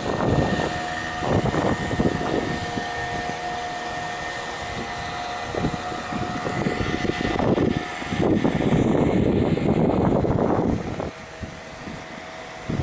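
Fishing boat engine running steadily, with gusts of wind buffeting the microphone that are loudest about eight to ten seconds in.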